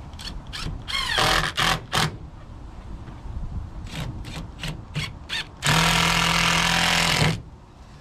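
Cordless drill-driver driving a screw through a wooden batten. Several short trigger bursts come in the first two seconds, with the motor spinning up in pitch, then a quick run of short blips around four to five seconds in, then one steady run of about a second and a half near the end.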